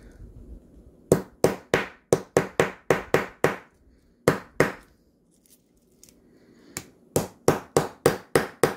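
A soft plastic watch hammer tapping a pry-type (snap-on) watch case back down onto the case over its water-seal gasket. Sharp taps come in quick runs of about four a second, with a pause in the middle. The back is being a pain to seat, which is put down to the poor tolerances of a low-quality case.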